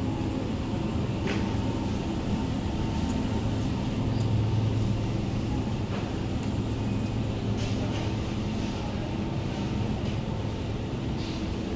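Steady low hum and rumble of hypermarket background noise, with a few faint clicks and clatters scattered through it.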